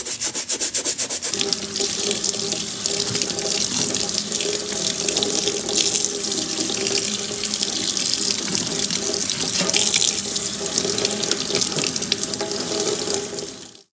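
A brush scrubbing a metal mesh range-hood grease filter in rapid strokes for about the first second and a half. Then a kitchen tap runs and water splashes over the filter into a stainless-steel sink. The sound cuts off suddenly just before the end.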